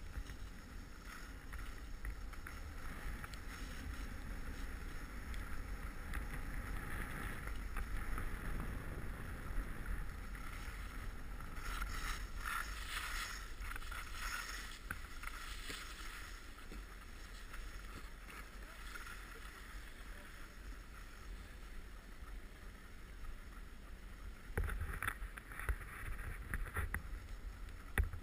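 Skis sliding and scraping over packed snow, with wind rumbling on the camera microphone; the scraping grows louder for a few seconds about twelve seconds in and again near the end.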